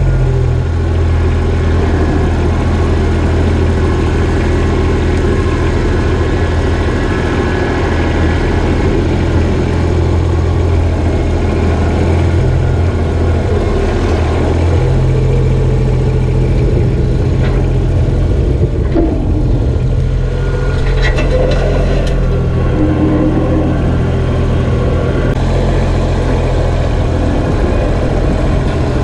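Kubota BX25 compact tractor's three-cylinder diesel engine running steadily while the front loader pushes a pile of brush and dirt, the engine note shifting a little as the load changes. A few short knocks come about two-thirds of the way through.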